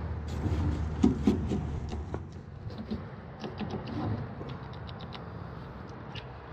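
Scattered light clicks and scrapes of gloved hands handling metal parts and tools in a furnace compartment, over a steady low rumble.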